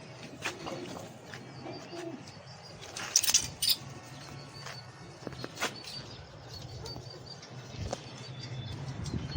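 Pigeons cooing in a low, pulsing murmur, with a few short sharp clicks about three seconds in.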